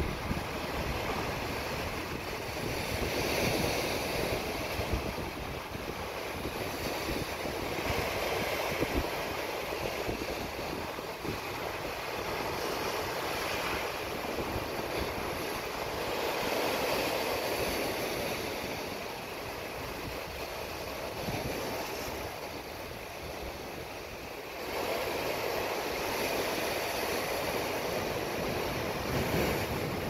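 Atlantic surf breaking and washing over granite shore rocks, a continuous rushing that swells louder every few seconds as each wave hits.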